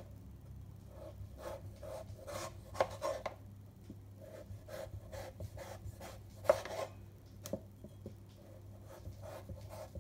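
Kitchen knife cutting the skin off pieces of pumpkin on a plastic cutting board: repeated short scraping strokes, with an occasional sharper click, the loudest about six and a half seconds in.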